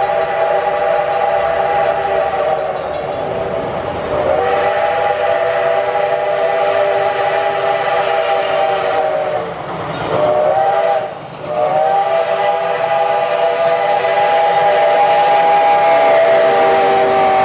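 Chime steam whistle of Pacific-type steam locomotive No. 425 blowing the grade-crossing signal: long, long, short, long, the last blast held and sagging slightly in pitch at the end.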